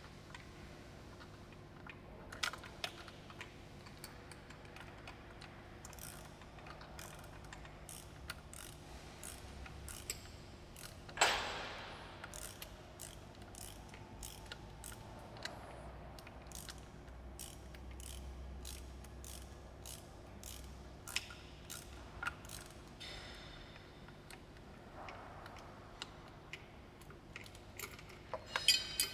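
Hand ratchet wrench clicking in runs as bolts are turned, with one louder metal clank about eleven seconds in.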